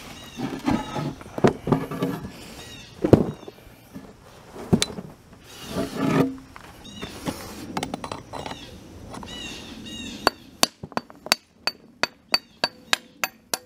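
Sand casting mold being broken apart in a plastic tub: scattered knocks and thuds of sand chunks falling and crumbling. From about ten seconds in comes a quick, even run of sharp metallic clinks, about three a second, as a metal tool raps at the mold and casting.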